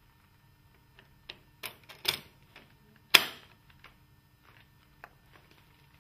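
Metal window-hardware rail clicking and clacking against a uPVC sash as it is laid into the sash's hardware groove and pressed into place, a few separate clicks with one sharp, loud snap about three seconds in.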